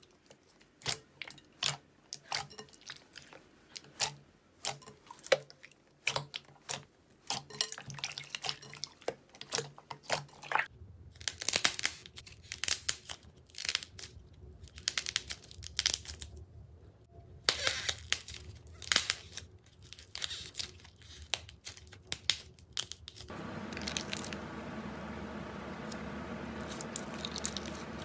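Hands squeezing and stretching slime. First come many sharp clicks and pops as clear blue slime is pressed in a glass bowl. From about eleven seconds in there is denser crackling and squishing as a thicker red slime is pulled apart, and from about twenty-three seconds a steady hum runs under the clicks.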